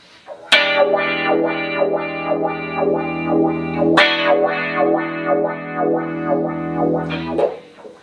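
Electric guitar played through a Boss AW-3 Dynamic Wah and a Boss CE-5 Chorus Ensemble into a pair of Roland JC-120 amps: a chord struck twice and left to ring, the wah filter pulsing in a steady sweep over it, dying away near the end.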